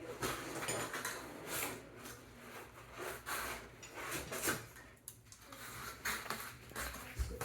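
Cardboard shipping box and its packing being opened and handled: irregular scraping, sliding and rustling.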